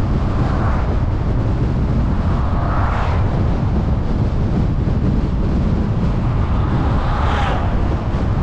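Steady low rumble of road and wind noise from a moving car, with three brief swells of rushing noise about half a second in, around three seconds and near the end.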